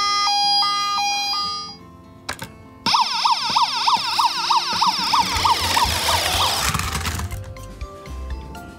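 Toy police van's electronic siren, pressed into action: a fast warbling yelp starts about three seconds in and fades out by about seven seconds. Before it, a high-low two-tone electronic tone alternates for the first second and a half.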